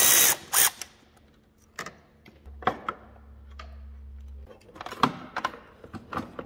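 Cordless ratchet spinning out the last chaincase cover bolt, stopping just after the start with one short blip after it. Then scattered metal clinks and knocks as the chaincase cover is worked loose and pulled off.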